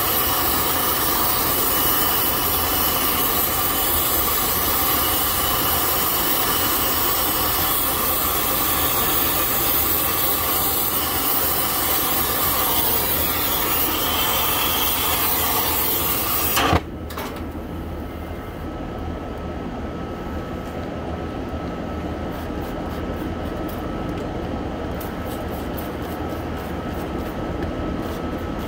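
Oxy-fuel brazing torch hissing steadily while a copper refrigerant line joint is brazed. A little past halfway it is shut off abruptly with a short pop, leaving a much quieter steady background hum.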